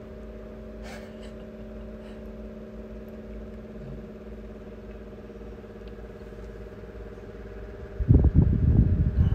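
Steady machine hum in the room, holding several unchanging tones, with a single click about a second in. About eight seconds in, loud, irregular low rumbling noise breaks in and keeps going.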